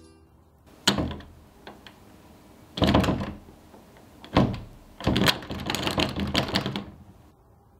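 A sliding glass door jolted and rattled in its frame: a few separate knocks, then a longer burst of rattling near the end, as the panel is tugged and does not open.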